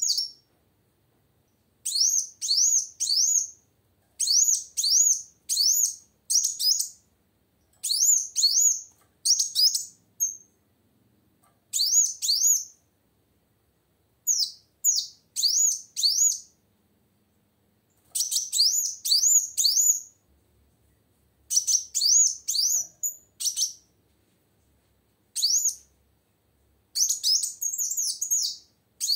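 Female kolibri wulung (sunbird) in full song: short bursts of three to six quick, high chirping notes, each sweeping up and down, repeated every second or two with brief pauses between.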